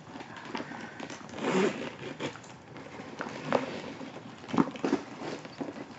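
Leather handbag being handled: soft rustling and scraping, with a few short clicks and taps.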